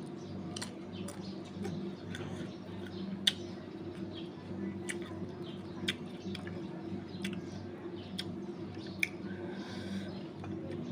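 Mouth sounds of someone eating sour tamarind: irregular wet clicks and smacks while chewing, a few of them sharp and loud, over a steady low hum.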